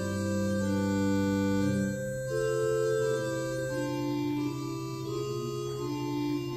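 Organ playing slow, sustained chords that change every second or so, over a low bass note held steadily from about two seconds in.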